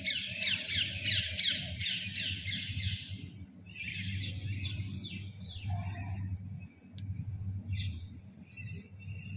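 Small birds chirping high and fast: a rapid chattering run of short notes for about the first three seconds, then scattered shorter calls. A low steady rumble runs underneath.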